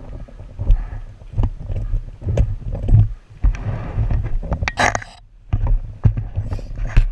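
Irregular low rumble and buffeting with scattered knocks, with a short hissing rush about five seconds in, like wind and jolts on the microphone of a camera carried on an enduro ride.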